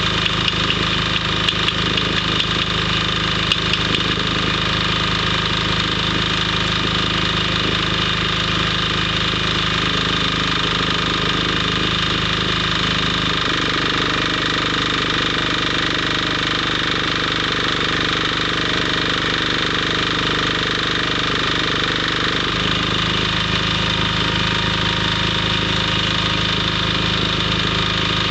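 Welding machine running with a steady hum, with short sharp crackles in the first few seconds. The deep part of the hum drops away for about nine seconds in the middle, then returns.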